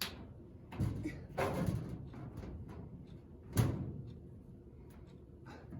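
A few irregular knocks and clatters, as of hard objects being handled and set down, the loudest about three and a half seconds in.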